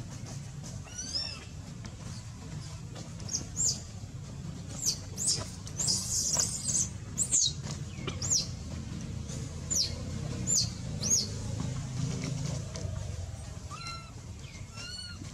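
Baby monkey giving a string of short, high-pitched squealing cries, each sliding down in pitch, over a low steady background hum.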